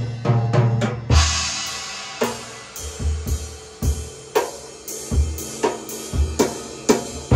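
Large acoustic drum kit played solo: a quick run of tom strokes, a cymbal crash about a second in, then a beat of bass drum, snare and cymbals.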